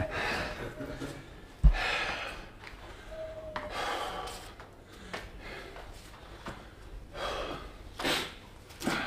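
A man breathing hard with several sharp, hissing breaths a second or two apart while lifting dumbbells in a shoulder set. A single low thump about two seconds in is the loudest sound.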